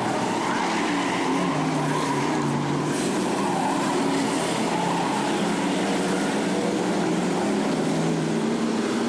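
A pack of figure 8 stock cars' engines running together on the track, several engine notes rising and falling over one another.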